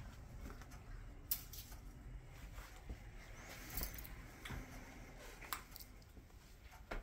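Quiet room tone with a few faint, scattered clicks and taps, about five in all.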